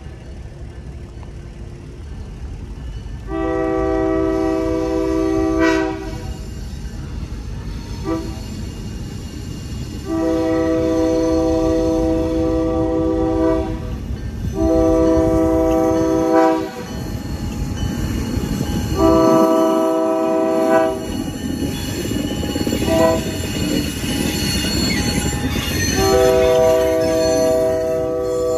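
Florida Central Railroad GP9RM diesel locomotive sounding its horn in a series of long and short blasts, mostly long with two short ones, the pattern of a grade-crossing warning. Under the horn, the locomotive's engine and rolling rumble grow louder as it draws near and passes.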